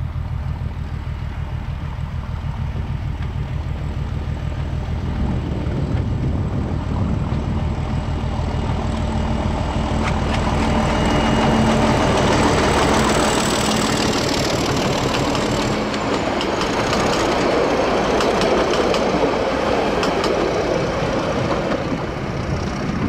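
NZR DE class diesel-electric locomotive under power as it approaches and passes, its diesel engine's deep throb growing and loudest about halfway through. Then the passenger carriages' wheels roll by with a clickety-clack over the rail joints as the train draws away.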